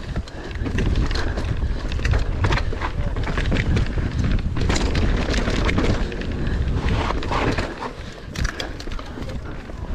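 Mountain bike descending a trail: wind buffeting the microphone as a heavy rumble, with the tyres on dirt and frequent sharp rattles and knocks from the bike over rough ground.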